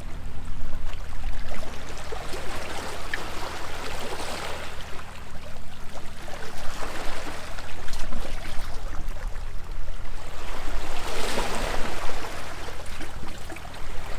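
Small sea waves washing against a stone seawall, swelling and falling back in surges every few seconds, over a low steady hum.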